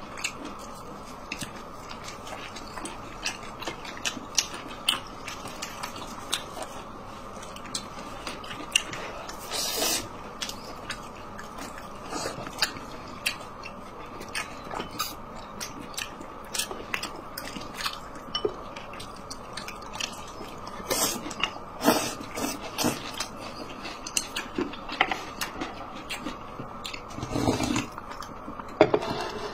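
Close-up chewing of dumplings: soft biting and wet mouth clicks at an irregular pace over a faint steady hiss. Near the end comes a longer sound of soup being sipped from a bowl.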